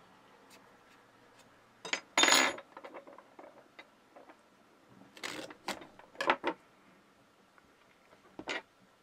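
A metal splicing fid set down on a wooden tabletop with a clatter about two seconds in, followed by several short clicks and clatters of tools being handled, and a short snip near the end as scissors cut the braided Dyneema sleeve.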